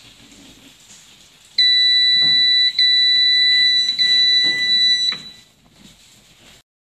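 The electronic buzzer alarm of a homemade Arduino pressure-sensor cushion sounding a loud, steady high beep. It starts about a second and a half in, breaks off briefly twice and stops suddenly after about three and a half seconds, with a few soft thuds under it.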